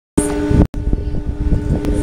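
Steady hum of a tour boat's engine with wind buffeting the microphone; the sound cuts out for an instant about half a second in.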